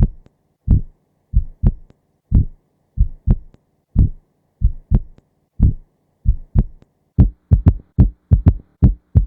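Heart sounds with an added third heart sound (S3 ventricular gallop), a three-beat 'Ken-tuc-ky' rhythm: S1, then S2 followed closely by S3 from rapid ventricular filling in early diastole. The dull thumps are played slowed down at first, then sped up to real time about seven seconds in.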